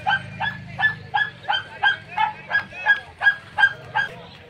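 A dog barking rapidly and without pause, about three short, high barks a second.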